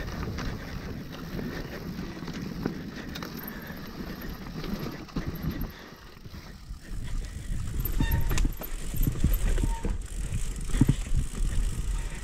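Hardtail mountain bike riding over a rough dirt trail: tyres on dirt and the bike rattling and clattering over bumps. It dips briefly, then gets louder and rougher about seven seconds in, with a couple of brief squeaks.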